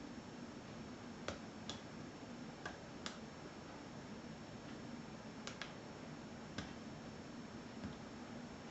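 Small sharp clicks of a lock pick and tension wrench working the pins of a 5-pin Euro cylinder, about eight irregular ticks over a faint steady hum.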